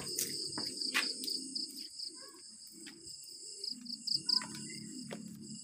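Crickets chirping in a steady high trill on a warm night, with a few faint clicks.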